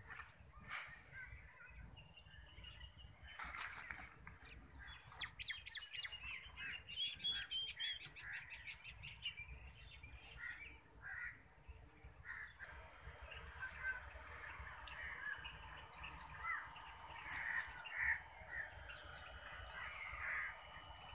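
Birds chirping and calling in the open, many short calls overlapping throughout.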